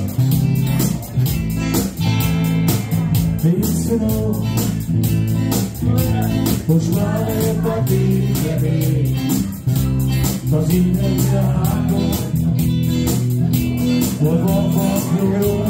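Live band playing a song: strummed acoustic guitar, bass guitar and electric guitar, with vocals sung into a microphone over a quick, even strumming rhythm.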